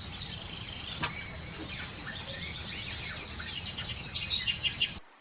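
Parrots chirping in a rapid string of short, high calls over a steady high-pitched tone, with a louder flurry of calls about four seconds in. The sound cuts off abruptly near the end.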